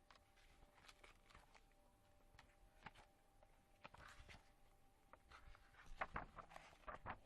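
Faint handling noises of a notebook and its packaging: soft scattered clicks and rustles, busier and a little louder about six to seven seconds in.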